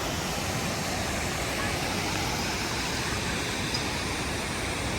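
Steady rushing of a waterfall's water, an even, unbroken noise at a constant level.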